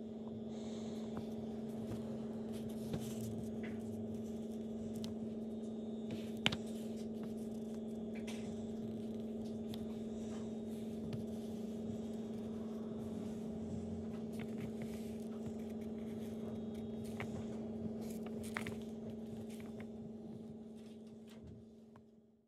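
Steady low electrical hum at one pitch, with a few faint clicks. The sound fades in at the start and fades out near the end.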